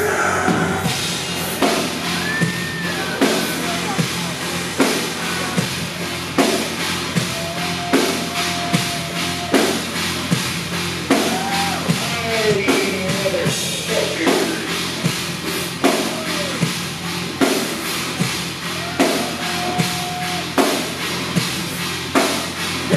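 Industrial metal band playing live: the drum kit beats a slow, heavy pulse, with a hard hit about every one and a half seconds, under a dense wall of band sound with gliding pitched lines on top.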